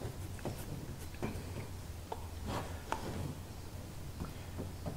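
Acid brush spreading epoxy on the wooden hull's bottom planks: faint, irregular scratchy strokes and light taps over a low steady hum.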